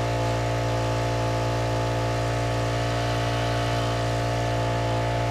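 Honda water pump's engine running steadily at a constant speed, an even hum.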